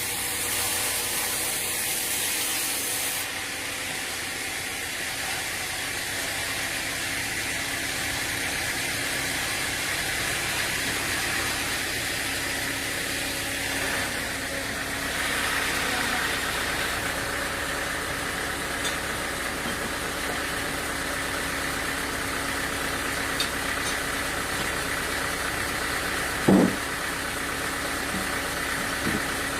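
Sawmill machinery running steadily with an engine-like hum and a hiss that stops a few seconds in. One sharp knock comes near the end.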